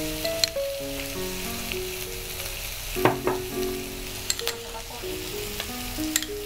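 Vegetables sizzling in butter in a frying pan, under background music with a slow melody. A spoon clinks against glass a few times, loudest about three seconds in.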